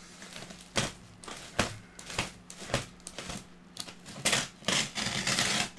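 Thick cardboard packing being worked open with a utility knife: a run of sharp, irregular clicks, then a longer scraping, crunching stretch near the end.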